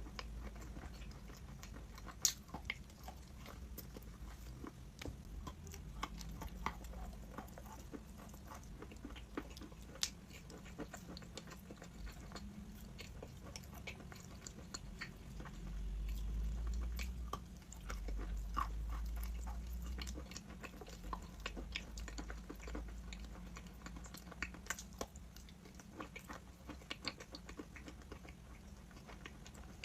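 A person biting and chewing crunchy chalk: irregular sharp crunches and clicks throughout, with a low rumble for a few seconds in the middle.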